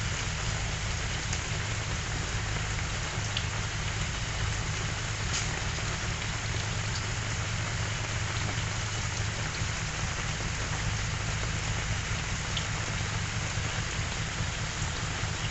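Steady rain falling, an even hiss with a few sharper drip ticks, over a steady low rumble.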